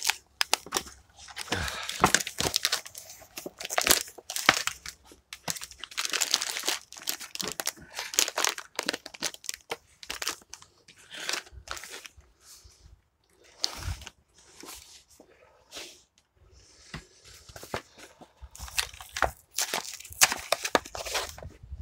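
Plastic MRE packaging crinkling and crackling as it is handled, in irregular stretches of sharp crinkles with short pauses between them.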